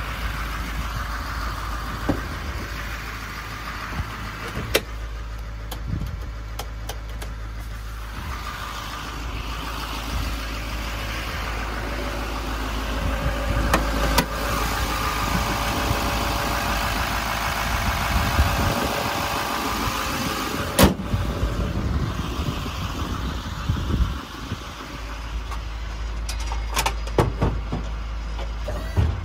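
A Duramax diesel pickup engine idling steadily, with a few sharp clicks and knocks over it.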